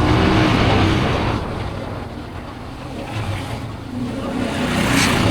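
Motor vehicle engines in street traffic. One passes and fades about a second in, and another comes up louder near the end.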